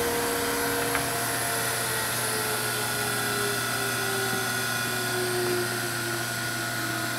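Internal-grinding (ID) spindle of a Chevalier CGP-816 CNC cylindrical grinder running free, a steady high-speed whine over the machine's hum. One tone slowly drifts lower in pitch, and there is a small click about a second in.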